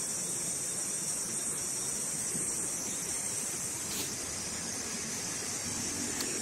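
Steady high-pitched hiss of forest ambience, with faint low rustling and a single faint click about four seconds in.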